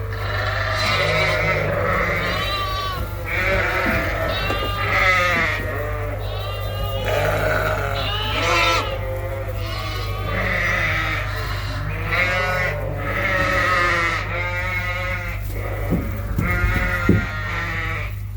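Lambs and ewes bleating continuously, many calls overlapping, as lambs separated from their mothers and ewes call for each other. A steady low hum runs underneath, and a few knocks come near the end.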